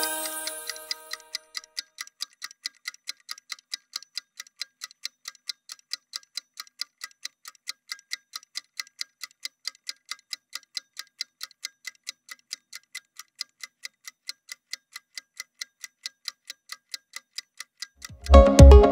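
Clock-like ticking sound effect, about four ticks a second, counting down the rest period between workout exercises. At the start a musical chime fades out, and music with a beat comes in near the end.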